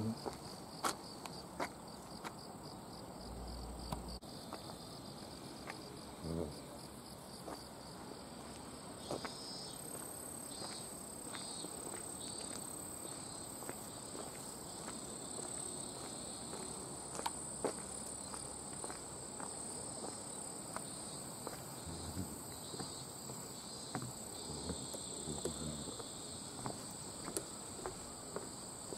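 Insects chirring: one steady high-pitched tone with a lower pulsing trill that swells and fades. Irregular footsteps on a path and onto a wooden footbridge.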